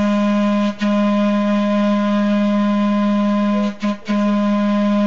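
Trolley car's horn blowing a single steady note for a grade crossing: a long blast, a brief break, another long blast, a very short toot about four seconds in, then the final long blast. This is the long-long-short-long crossing signal.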